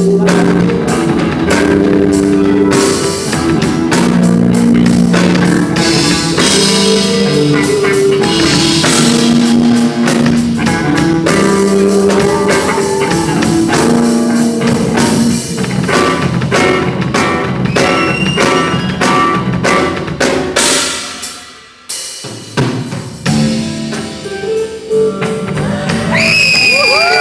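Music with a drum kit beat over a bass line; the music cuts out briefly a little past the three-quarter mark, then comes back.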